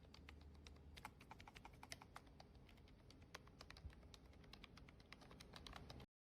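Typing on a wireless keyboard with round, typewriter-style keycaps: a quick, uneven run of light key clicks, several a second, that stops abruptly just before the end.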